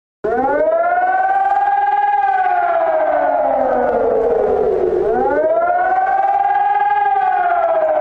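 German civil-defence warning siren wailing: a loud rising-and-falling howl that climbs for about two seconds, sinks for about three, then climbs again and starts falling near the end. It comes in just after a brief gap at the start.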